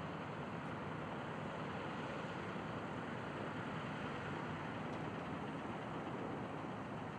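Four Pratt & Whitney R-1830 Twin Wasp radial engines of a B-24J Liberator running steadily at taxi power.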